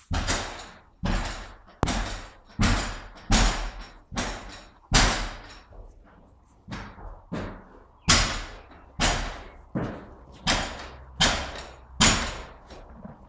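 A horse banging on its stable door, sharp bangs about one every three-quarters of a second, each with a short ringing tail: the horse's impatience to be let out.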